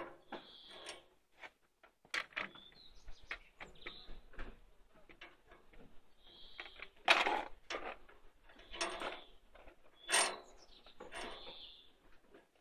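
Wheelbarrow wheel turned by hand: irregular clicks and rattles, with short high squeaks about every two or three seconds.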